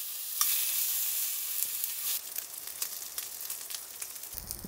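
Skewered pork neck sizzling in a hot frying pan on a gas burner. A steady hiss grows louder about half a second in, then gives way to scattered crackles and pops of fat.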